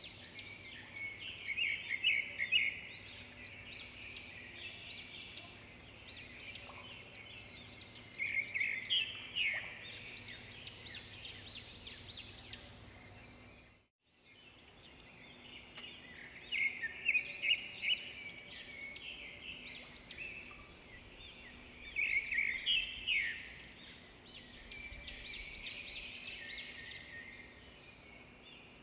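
Songbirds singing and chirping in bursts of quick, high notes over faint outdoor background. There is a short total dropout about halfway through, and the song picks up again after it.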